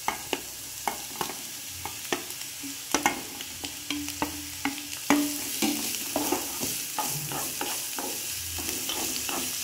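Chopped onion sizzling as it goes into hot mustard oil in a frying pan, with a wooden spatula scraping and tapping it off a steel plate in a run of sharp clicks. About five seconds in the sizzle gets louder and steadier as more onion lands in the oil.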